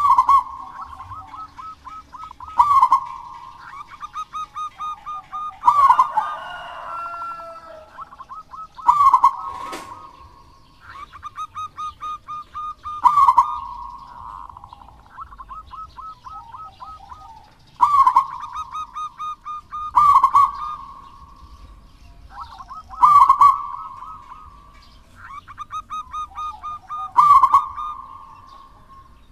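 Zebra dove (perkutut) singing its cooing song over and over: runs of quick, staccato coo notes, each phrase with a louder ringing coo, repeated every few seconds.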